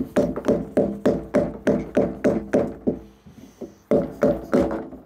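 Rapid hollow knocking on a PVC end cap, about four taps a second, each ringing briefly through the plastic fish tank as the cap is tapped off a pipe seated in a Uniseal. A short pause about three seconds in, then three more taps.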